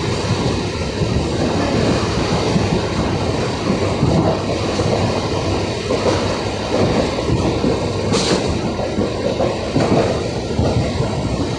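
Mumbai suburban local train (electric multiple unit) running, heard from inside the coach: a steady rumble and clatter of the wheels on the track, with a brief high hiss about eight seconds in.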